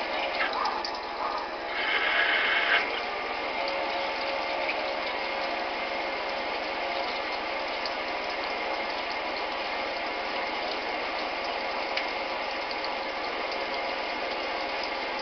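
Schaublin CNC lathe running steadily, a mechanical noise with several steady whining tones. About two seconds in there is a brief louder hiss lasting under a second.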